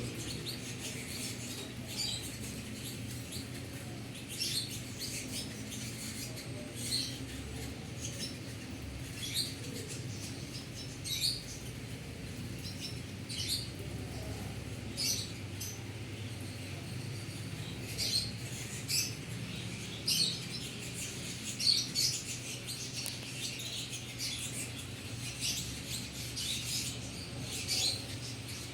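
Canaries giving short, sharp chirps at irregular intervals, some in quick pairs, over a steady low hum.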